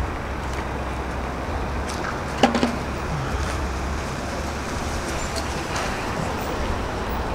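Steady rumble of road traffic, with a brief pitched sound about two and a half seconds in.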